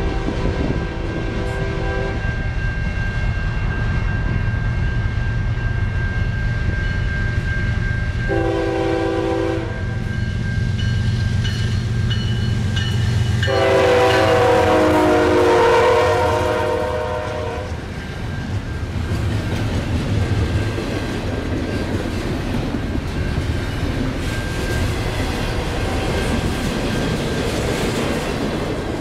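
Air horn of BNSF GE diesel locomotives: a blast ending just after the start, a short blast about eight seconds in, and a long one from about fourteen to seventeen seconds as the locomotives pass, over the steady rumble of the diesel engines. After that, double-stack intermodal container cars roll past with rhythmic wheel clickety-clack on the rail joints.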